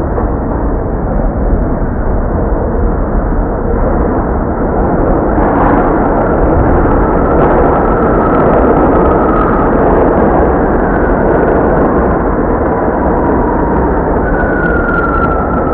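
NYC subway train running: a steady rumble and clatter that swells in the middle, with a thin high squeal twice, the second near the end, falling slightly in pitch.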